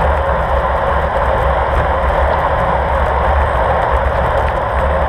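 Steady wind buffeting and road noise on a moving road bike's camera microphone: a constant low rumble under an even hiss.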